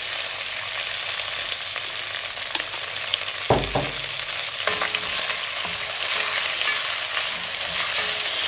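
Boiled beef pieces and ginger-garlic paste sizzling in hot oil in a pot, stirred with a wooden spatula. A dull knock about three and a half seconds in.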